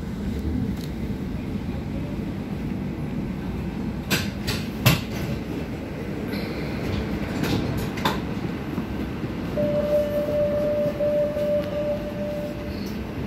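Barcelona metro train heard from inside the car as it runs and pulls into a station: a steady low rumble with a few sharp wheel clacks, then a steady whine for about three seconds near the end.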